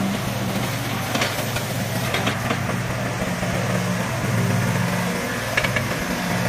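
Hitachi ZX30 mini excavator's diesel engine running steadily while the machine swings and works its boom and bucket, with a few light clicks.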